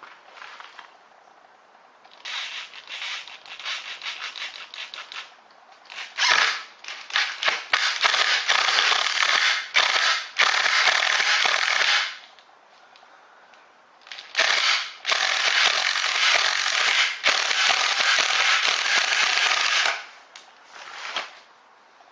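Power driver driving a ceramic-coated high-carbon steel decking screw into timber, with a dense rattling whirr: a few short stop-start bursts, then two long runs of about six seconds each with a pause between, and a brief burst near the end.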